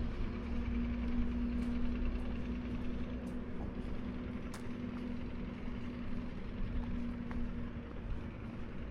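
A steady engine hum with a low rumble beneath it; its drone fades near the end.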